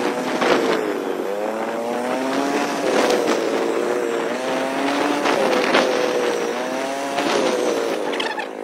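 Motor vehicle engine running while driving, its pitch climbing and dropping back every second or two. A brief rush of noise comes with several of the drops.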